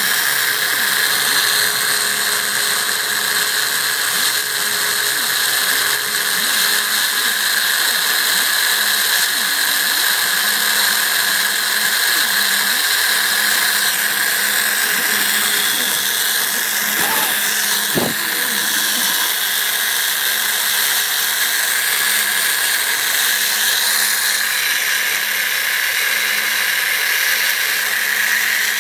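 CNC router spindle running at a steady high whine while its fine engraving bit cuts letters into painted wood. A single short click about two-thirds of the way through.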